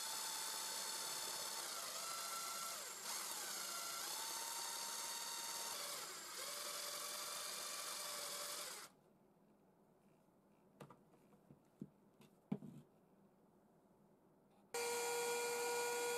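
Electric drill spinning a homemade sanding drum against the inside of a hole in a plywood block, a steady motor whine whose pitch shifts a few times as the drum bears on the wood, stopping after about nine seconds. A few light knocks of handling follow, then near the end a trim router starts running with a steady high whine.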